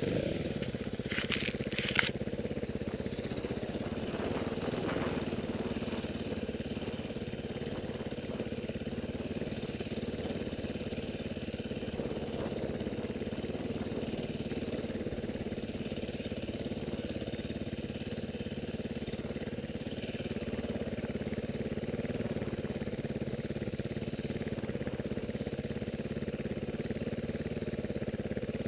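Dirt bike engine running steadily, with a few sharp clicks about a second or two in.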